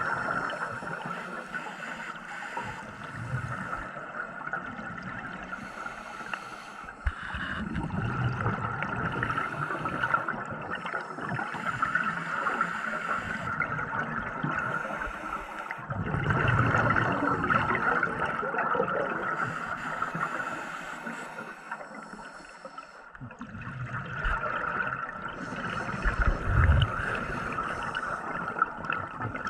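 A scuba diver breathing through a regulator underwater: three long bubbling exhalations a few seconds apart, with quieter inhaling stretches between.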